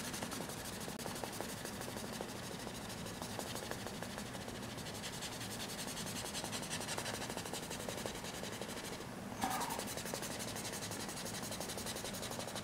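A wad of toilet-paper tissue rubbing back and forth over pencil graphite on drawing paper to blend the shading, a steady soft scratchy rubbing. A brief louder sound comes about nine seconds in.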